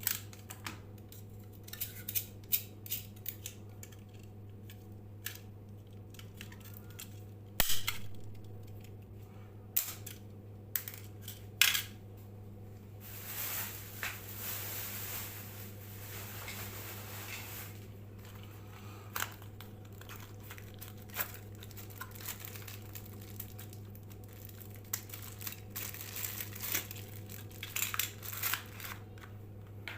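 Small tools and parts being handled: scattered sharp clicks and snips over a steady low hum. A stretch of rubbing and rustling comes about halfway through.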